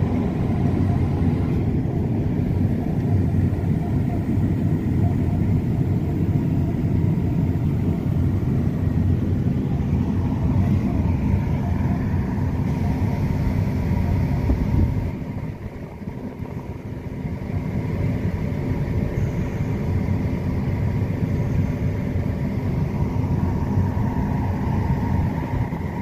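Combine harvester running steadily while harvesting soybeans, a loud low drone with a faint steady whine above it. About halfway through it becomes quieter and more muffled as it is heard from inside the cab.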